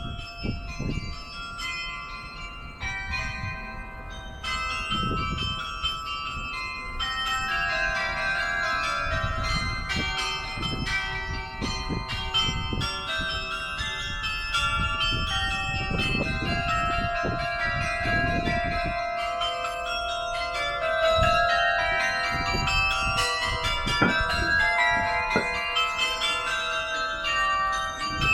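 St. Pierre Cathedral's carillon bells playing a tune, struck notes ringing on and overlapping, growing busier toward the end.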